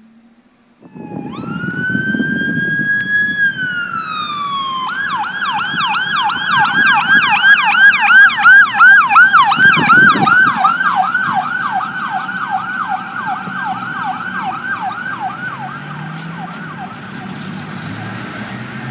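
Electronic emergency-vehicle siren on an EMS physician response SUV: it comes in about a second in, rises to a held wail, falls, then switches to a fast yelp of about three cycles a second. The yelp is loudest around the middle and fades out toward the end, with vehicle and road noise beneath.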